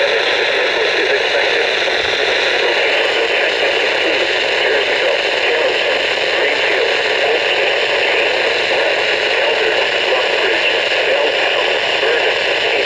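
Weather radio receiver giving a steady hiss of static, with no voice coming through: the signal has faded into noise.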